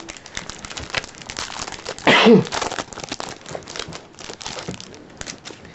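Handling of trading cards and their foil pack wrappers: crinkling and soft clicking rustles, with a brief voiced hum about two seconds in.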